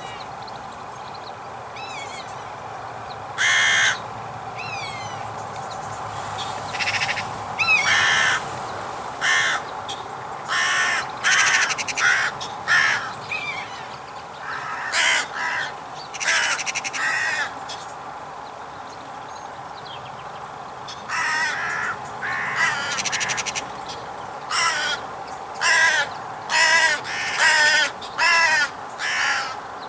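Crows cawing over and over: harsh caws in short series, coming in bursts from about three and a half seconds in and most crowded in the last third.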